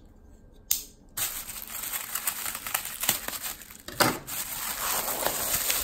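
Plastic poly mailer bag being torn open by hand, the thin plastic crinkling and crackling as it is pulled apart. The sound starts about a second in, and there is one louder, sharper noise about four seconds in.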